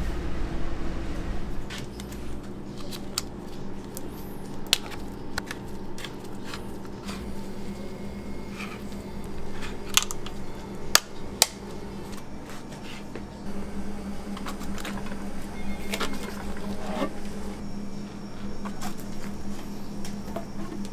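Large rectangular tin of luncheon meat being opened with its wind-up key strip: scattered metallic clicks and scraping, sharpest in a few clicks about ten to eleven seconds in, over a steady low hum.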